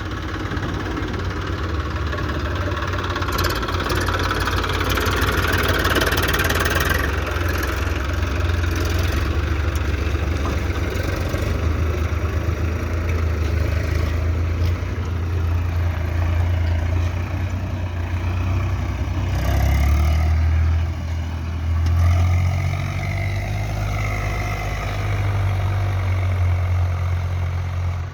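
Heavy diesel engine of a construction machine running, with a steady low drone that swells and dips a little past the middle.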